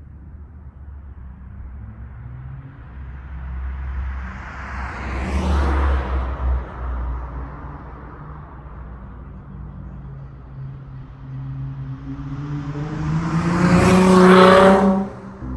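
Dodge Charger SXT's V6 with Flowmaster Super 10 mufflers driving past twice: a first pass about five seconds in, then a louder pass near the end with the exhaust note rising in pitch as it accelerates, cut off sharply.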